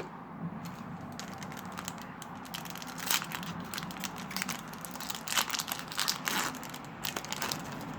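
Foil Yu-Gi-Oh booster pack wrapper being crinkled and torn open by hand, with irregular crackles coming thicker now and then.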